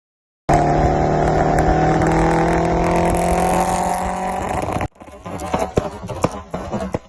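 A car engine running hard at high revs, its pitch easing slightly downward, which cuts off abruptly after about four seconds; quieter clicks and rattles follow.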